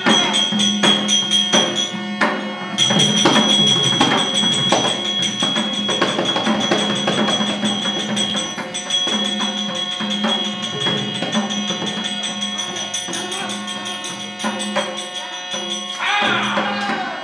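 Live percussion-led music accompanying a tholu bommalata leather shadow-puppet show: rapid drum and cymbal strikes over steady held tones.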